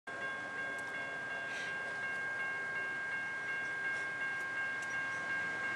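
Steady high ringing of several tones held together from an approaching train, as the rails sing ahead of it or its horn sounds far off.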